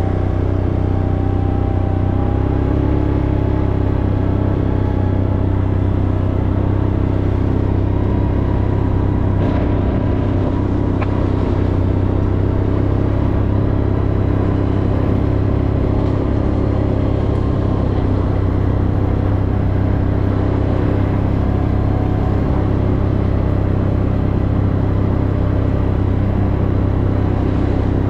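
Steady drone of a car on the move, heard from inside the cabin: engine and road noise holding a constant level.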